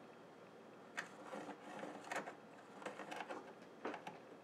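Felt-tip marker scratching along the edge of a round opening in a 3D-printed plastic bezel, tracing the outline onto the sheet-metal panel beneath: several faint, short strokes.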